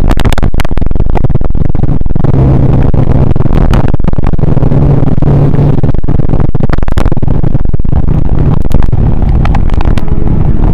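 Motorcycle ride on wet roads picked up by a bike-mounted action camera: loud, steady wind rush and tyre noise over a low engine hum, with frequent sharp crackles.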